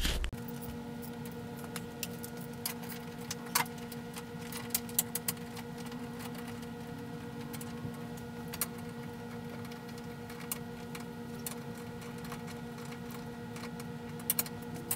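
A steady hum made of a few even tones, with scattered light clicks and knocks from hands and tools working in an engine bay.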